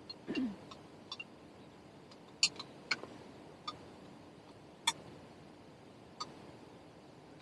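Light clinks of utensils against tableware during a meal: about seven separate sharp taps with a brief ring, spread irregularly. Just after the start there is a short low sound that drops in pitch.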